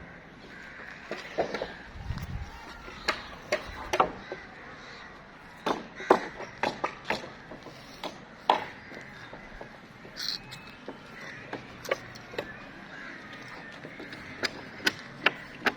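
Masonry work on a building site: sharp, irregular taps and knocks, some in quick clusters, on a steady background hum.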